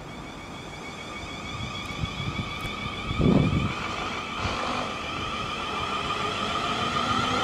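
Class 444 Desiro electric multiple unit pulling away and accelerating towards the microphone, its traction equipment giving an electronic whine in several tones that grows steadily louder. A brief gust of wind hits the microphone about three seconds in.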